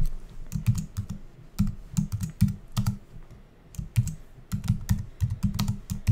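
Typing on a computer keyboard: irregular runs of quick keystrokes, with a short pause about three seconds in.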